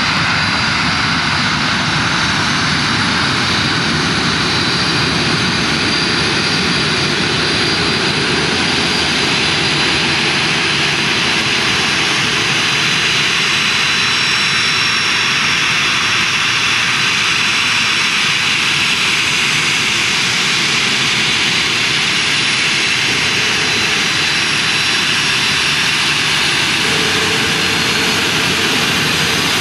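Boeing 737-400's CFM56-3 turbofan engines running at low taxi power as the jet taxis past. A steady jet roar with thin, high, steady whine tones over it.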